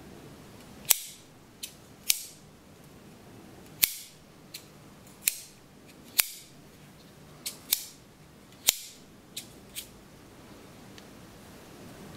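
Boker Plus Griploc folding knife being opened and closed by hand: about a dozen sharp metallic snaps from the blade and its locking mechanism, spaced irregularly roughly a second apart, some faint and some loud.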